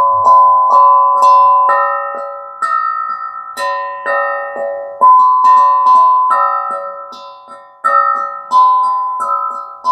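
Instrumental music: a melody of struck, bell-like keyboard notes, each ringing and fading before the next, about one to two notes a second.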